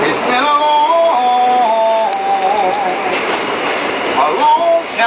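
A man singing long drawn-out notes that step down in pitch and waver, over the steady running noise of an R44 subway car.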